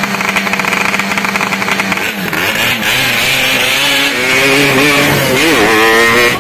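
Yamaha RX-King's two-stroke single-cylinder engine running loud through its exhaust. It holds a steady pitch for about two seconds, then is revved, the pitch dropping and climbing again several times.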